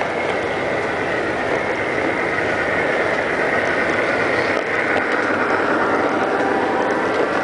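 G scale model trains running: steady motor and gear whirring with wheels rolling along the track as one train passes another on the next track.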